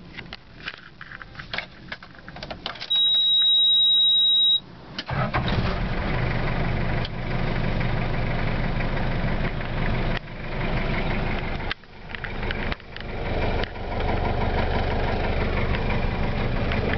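1987 Daihatsu Delta van's engine started from cold. A few light clicks and a loud, steady high beep lasting about a second and a half come first. The engine catches about five seconds in and keeps running, its sound falling away and building up again a few times as the van pulls off and changes up through the gears.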